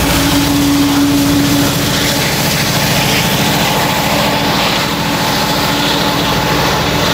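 Diesel freight locomotive's engine running as the locomotive moves away, a steady pulsing throb. A high steady tone rides over it and fades out about two seconds in.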